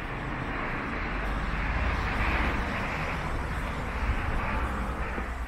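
Road traffic: a vehicle passing on the street, its noise swelling to a peak about two to three seconds in and then fading, over a low rumble.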